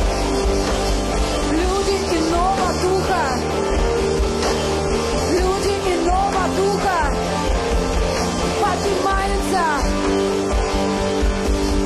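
Live worship band music: held chords under a melody line that slides between notes, with no words sung.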